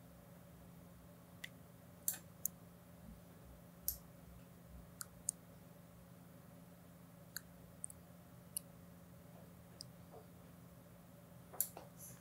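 Computer mouse clicking about a dozen times at irregular intervals, over a faint steady electrical hum.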